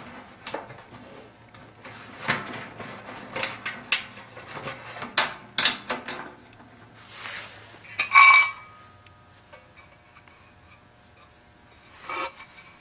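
Wiring rustling and clicking against the sheet-metal housing of a kerosene torpedo heater as it is tucked in by hand, with scattered light knocks. About eight seconds in comes a sharper metal clank that rings briefly, and there is another knock near the end as a cover panel is handled.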